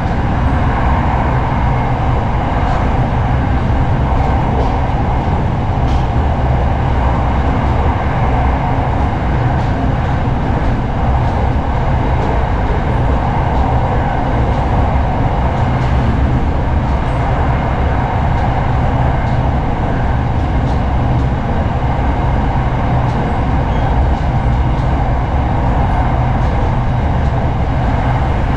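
SRT Red Line electric commuter train running along the line: a steady, even rumble of wheels on rail with a few faint clicks.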